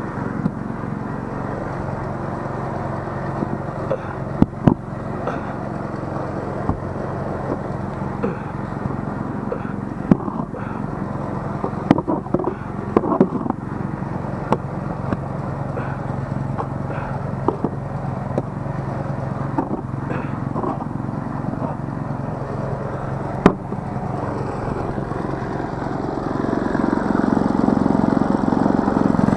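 A snowblower's small engine running steadily while a snow shovel scrapes and knocks against the snow now and then. Near the end the engine grows louder as the snowblower is put to work clearing snow.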